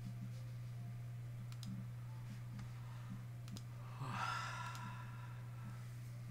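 A man yawns aloud, one long breathy exhale about four seconds in that fades out over under two seconds, over a steady low hum with a few faint clicks before it.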